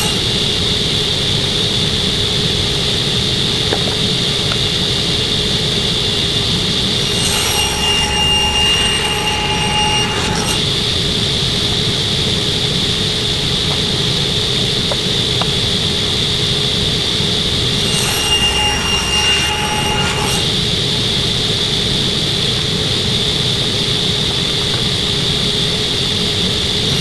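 Table saw running steadily with its blade spinning while walnut pieces are fed through on a sled fixture. The pitch of the running changes briefly twice, about a third and about two-thirds of the way through.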